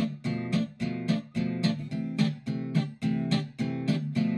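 Background music: an acoustic guitar strummed in a steady, even rhythm.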